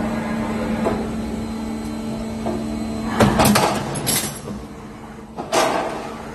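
Roll forming line for road crash barriers running with a steady motor hum, while its steel carriage travels on a ball screw. A burst of loud metal clanking comes about three seconds in, and another sharp clank about two seconds later.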